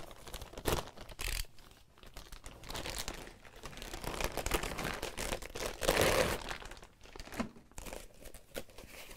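Clear plastic bag crinkling and rustling as a full-face respirator mask is unwrapped and pulled out of it, loudest about six seconds in.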